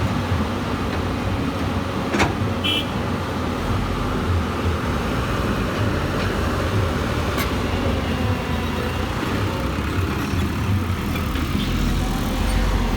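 Diesel machinery running steadily while a Hyundai Robex 220-9SH excavator loads dirt into a dump truck. A sharp clank comes about two seconds in, followed by a brief high squeal, and there is another sharp click about halfway through.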